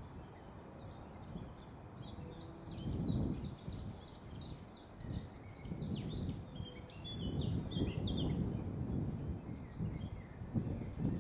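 A songbird sings a quick run of repeated high chirps, about three a second, over a low, gusty rumble of wind on the microphone that swells twice and is the loudest sound.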